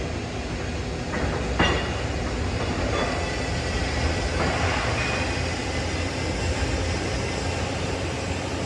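MIG (GMAW) welding arc running steadily on a steel pipe joint: a continuous, unbroken noise with a brief click about a second and a half in.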